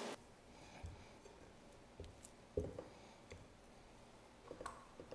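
Near silence: quiet room tone with a few faint, short knocks and taps from kitchen things being handled.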